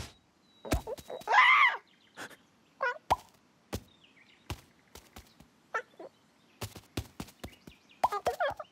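Cartoon bird character squawking and gabbling in short bird-like calls, the longest about a second in and a few more near the end, with a scatter of light taps and clicks between them.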